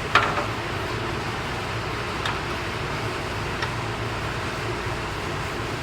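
Metal suspension spacers and a bolt clinking as they are test-fitted on a heim joint: one sharp clink with a short ring just after the start, then two fainter clicks. A steady hiss runs underneath.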